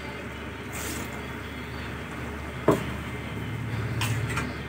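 A steel ladle stirring chicken gravy in a pressure cooker, with a sharp metal clink against the pot a little past halfway and a few lighter clinks near the end, over a steady low hum.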